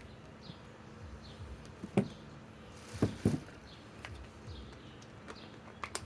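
A few sharp knocks, one about two seconds in and a quick pair about a second later, then a lighter click near the end, over a quiet outdoor background with faint bird chirps and a low steady hum. No impact wrench is running.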